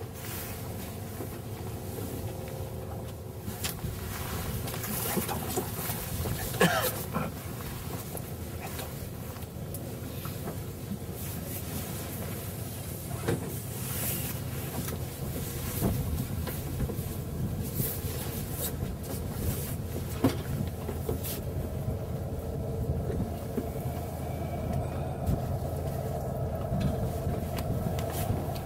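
Steady low rumble aboard a small fishing boat on open water, with a few scattered knocks.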